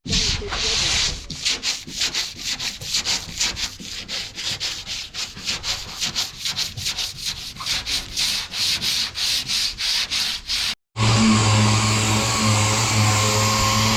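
Sandpaper rubbed back and forth by hand over truck cab bodywork, about three to four quick rasping strokes a second. After a brief break near the end, a machine starts a steady, louder hum.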